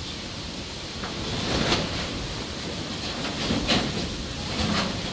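Gusty wind and rain, with loose metal roofing sheets rattling and clattering in several sharp bangs from about a second in.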